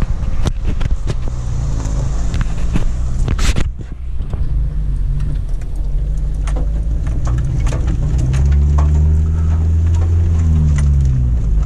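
A four-wheel drive's engine running as it drives over a rough dirt track, with frequent knocks and rattles from the body and suspension over bumps. About eight seconds in the engine note grows louder and rises in pitch under throttle, then falls back near the end.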